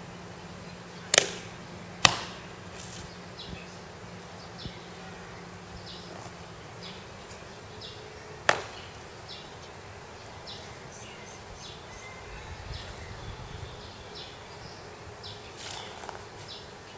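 Three sharp cracks from a Chen-style taijiquan performer's explosive movements: two in quick succession about a second in, and one more after eight seconds, just after a knee lift. Faint high chirping continues in the background.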